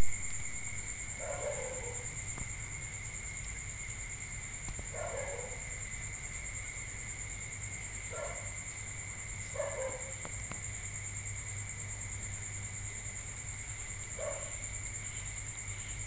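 An animal calling about six times: short calls that fall in pitch, a few seconds apart. Under them run a steady high-pitched whine and a low hum.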